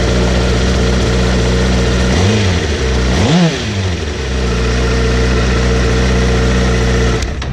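2017 Honda CBR1000RR Fireblade's inline-four engine idling in neutral, blipped twice about two and three seconds in, the second rev going higher, each falling straight back to a steady idle.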